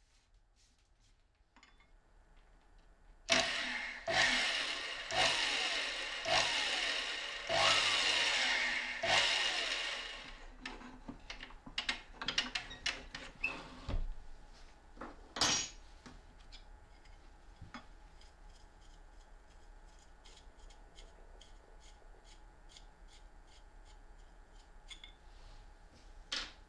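Drill press boring a row of holes in an aluminium flat bar: about six drillings in quick succession, each starting sharply with a falling whine as the bit bites, followed by clicks and knocks as the clamps and bar are handled, and one more click near the end.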